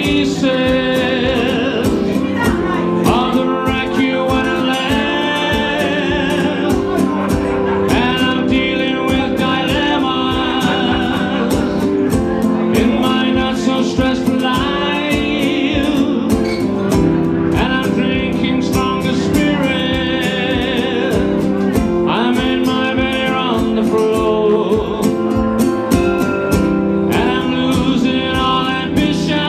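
A man singing live to his own strummed acoustic guitar, with a wooden stomp box keeping a steady beat beneath. The sung lines come in phrases of a few seconds with short gaps between them.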